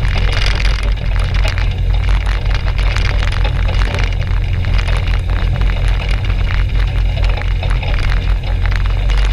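Rotax 582 two-stroke twin of a Skyranger ultralight idling steadily on the ground, with prop wash crackling on the outside-mounted microphone.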